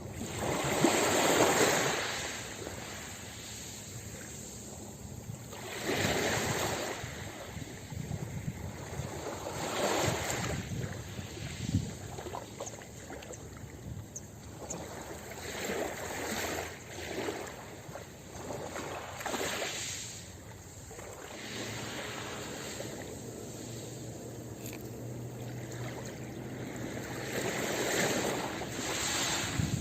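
Ocean waves breaking on a beach, a surge of surf every few seconds, the loudest about a second in and another near the end.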